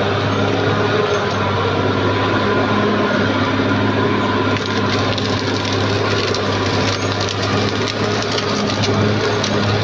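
Caterpillar D6R XL bulldozer's diesel engine running steadily under load while wood and vegetation crack and splinter as the machine pushes through them, the snapping growing denser about halfway through.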